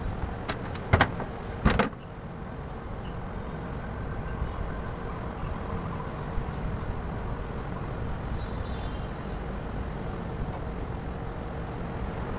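A few sharp metal knocks and clanks in the first two seconds as the parts of an air-conditioner condensing unit's fan assembly are handled, then a steady low background rumble.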